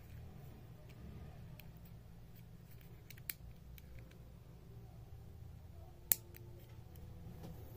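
Small plastic Bluetooth remote shutter handled in the fingers, with faint handling clicks, a sharp click about three seconds in and a louder sharp click near the end as its button is pressed.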